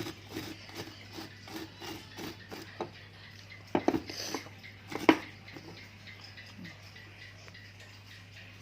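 Dishes and kitchen utensils knocking and clinking as a home-made cough remedy is prepared, with a cluster of louder knocks about four seconds in and one sharp knock about five seconds in.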